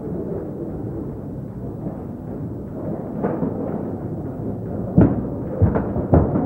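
Muffled, steady boxing-gym noise, then a quick run of about five sharp thuds from sparring in the ring, about five seconds in.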